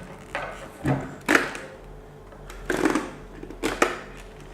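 Handling noises of a motorcycle helmet and its price tags being turned over: about four short knocks and rustles, over a faint steady hum.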